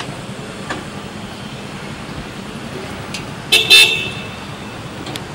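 A vehicle horn honks twice in quick succession, a little over three and a half seconds in, over steady street traffic noise.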